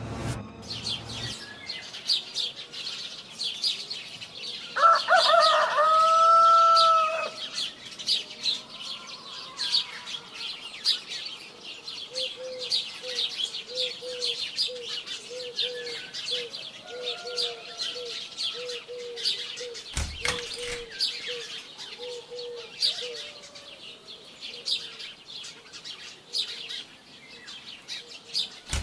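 Small birds chirping steadily, with a rooster crowing once, loudly, about five seconds in. In the middle there is a run of lower, evenly repeated bird notes, and a single thump about twenty seconds in.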